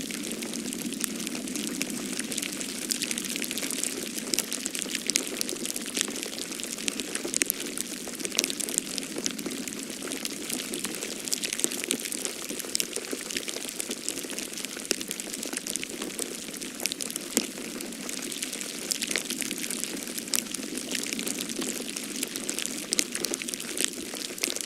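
Falling-snow ambience: a steady hiss with many small, irregular ticks of grains striking a surface, over a low, even rush.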